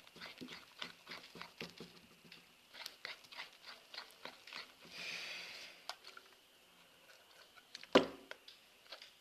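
Sticky glue-and-borax slime being stirred with a plastic spoon, making a run of small wet clicks and squelches, with one sharp, loud crack near the end.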